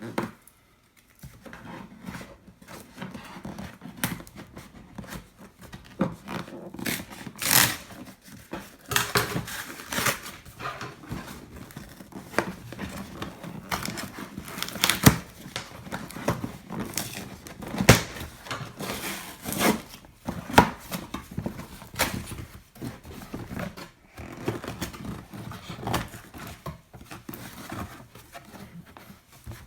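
Scissors cutting open the bottom of a cardboard box: an irregular run of sharp snips, scrapes and tearing of card and tape.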